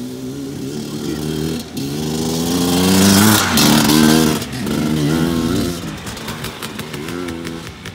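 Enduro motorcycle engine revving and pulling away, its pitch rising and dropping several times. It is loudest about three to four seconds in, then fades as the bike rides off.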